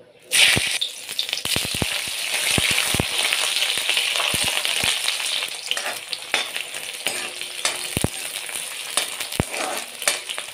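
Sliced onions frying in hot oil in a metal wok: a sudden loud sizzle starts about a third of a second in and carries on steadily. A metal ladle stirs them, with scattered sharp knocks and scrapes against the pan.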